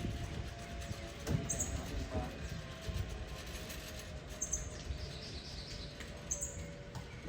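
Short, high, falling bird chirps, one every couple of seconds, over a low steady rumble.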